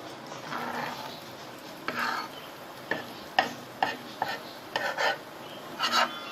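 A spatula scraping and tapping against a frying pan as cooking eggs are broken up into pieces. The strokes come irregularly, with a quicker run of sharp knocks in the second half.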